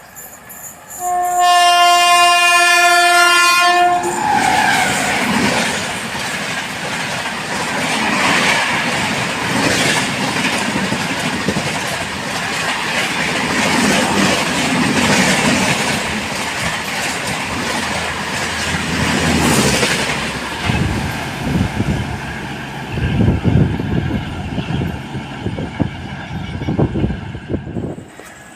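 A train horn sounds one long blast of about three seconds. A train then passes at speed with a continuous rumble and the clatter of wheels, which ends abruptly near the end.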